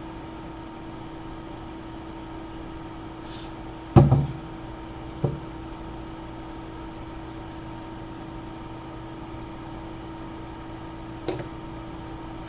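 Steady low electrical hum, with a sharp knock about four seconds in and fainter knocks about a second later and near the end.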